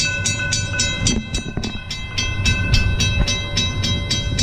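Florida East Coast freight train rumbling past at close range. Over it a grade-crossing bell rings steadily at about three to four strikes a second, partly drowned by the train's rumble a second or two in.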